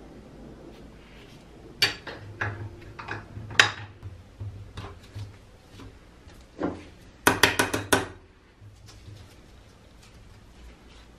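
Metal clinks and knocks of a homemade flat steel wrench against a brass nut clamped in a steel bench vise, as the tool is fitted and worked to loosen the nut. Scattered single knocks, then a quick run of several clanks about seven seconds in.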